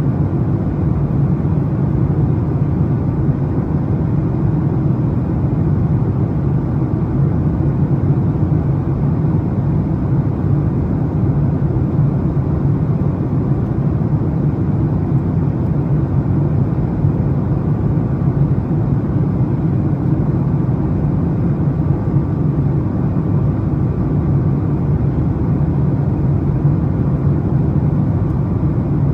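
Jet airliner cabin noise in flight: the turbofan engines and rushing air heard from inside the cabin as a steady, unbroken low rumble with a faint hum over it.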